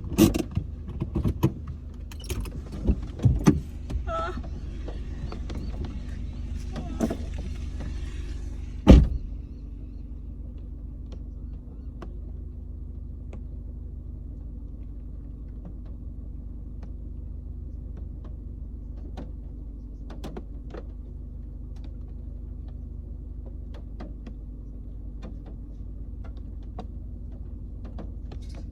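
Knocks and rustling, then a car door shutting with one loud thud about nine seconds in. After that the car's engine runs steadily, heard from inside the cabin.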